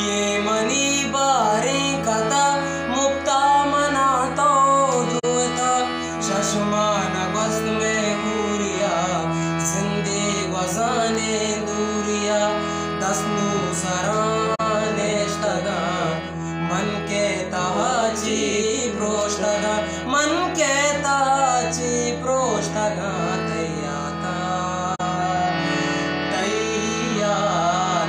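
A young male voice singing a ghazal with ornamented, gliding melodic lines over the sustained reed chords of a hand-pumped harmonium.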